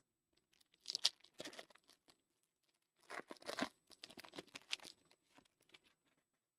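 A foil trading-card pack wrapper being torn open and crinkled, in two spells of crackling tearing: about a second in, and again from about three seconds in.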